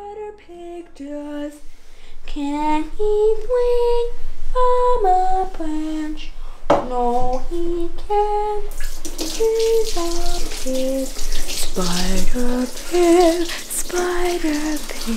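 A woman singing a slow melody unaccompanied, one held note after another. About nine seconds in, a loud rushing noise like running water comes in under the singing.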